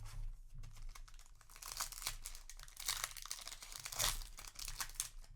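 Foil booster-pack wrapper crinkling and tearing as it is handled, a dense crackle that is busiest and loudest in the middle of the stretch.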